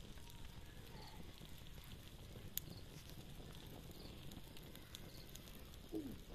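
Wood campfire burning with soft crackling and scattered sharp pops, the loudest about two and a half seconds in. A short falling whine comes near the end.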